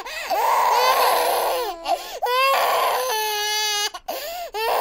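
Cartoon rabbit child's voice making a "special noise": a high, wavering wail that slides up and down, then a held steady note about three seconds in.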